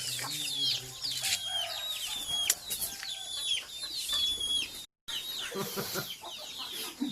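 Chickens clucking, with many short, high peeps that fall in pitch. The sound cuts out briefly about five seconds in.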